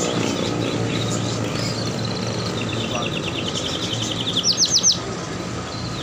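A small caged songbird singing. After a few scattered high notes, it sings a fast trill of repeated notes for about two seconds, then four loud rising sweeps about four and a half seconds in, over steady low street noise.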